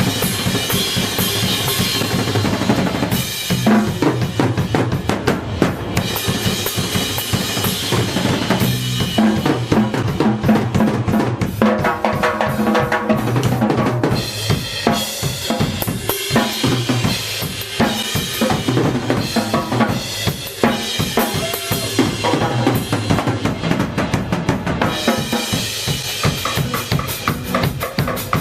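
Live band playing an instrumental passage with a drum kit to the fore, bass drum and snare strokes driving the rhythm, and a pitched instrument coming through in the middle.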